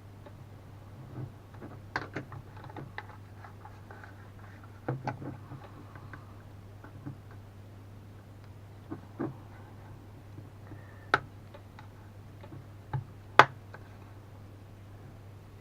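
Irregular sharp clicks and taps of plastic as the power bank's plastic case is worked open at its snap latches, some in quick pairs, the loudest near the end, over a steady low hum.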